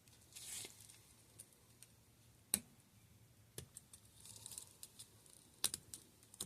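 Scattered light clicks and taps of small tools and shock parts being handled on a workbench, with a couple of brief soft hisses, over a faint steady hum.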